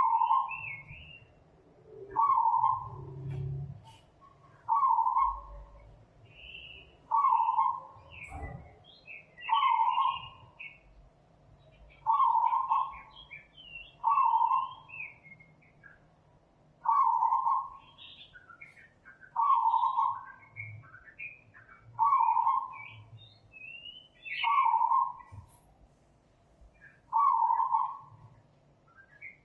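Bird calls: one bird gives a short, even note about every two and a half seconds, twelve times over, while other birds chirp higher in between.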